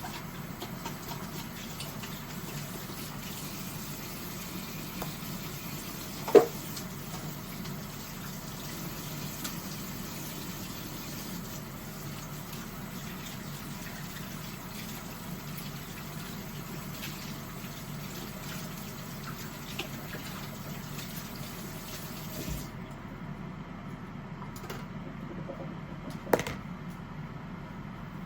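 Kitchen tap running water, shut off about three quarters of the way through. Two sharp knocks, one about six seconds in and a smaller one near the end, over a steady low hum.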